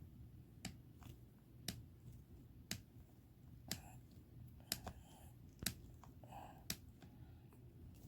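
Faint sharp clicks about once a second, evenly spaced, over a low steady hum.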